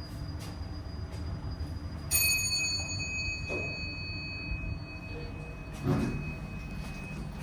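Fujitec Exceldyne elevator car travelling with a steady low rumble. About two seconds in, a single bright chime strikes and rings out over several seconds, typical of the arrival chime. A short knock comes near the end.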